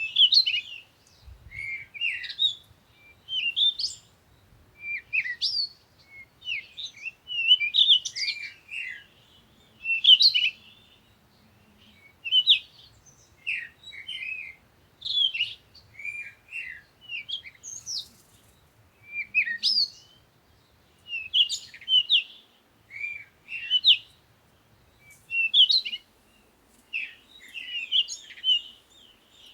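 Songbirds chirping and singing in a steady stream of short, high whistled phrases and twitters, one after another with brief gaps.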